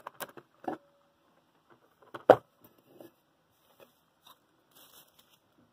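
Handling noise from a low-temperature-differential Stirling engine's aluminium plates and acrylic cylinder: a few light clicks and taps, then one louder knock a little over two seconds in as the engine is set down on a wooden table, followed by a few faint ticks.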